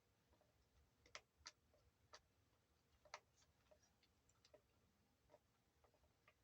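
Near silence broken by faint, irregular small clicks and ticks, a few slightly louder ones one to three seconds in, from handling an electric guitar's tuners and strings while the strings are unwound by hand.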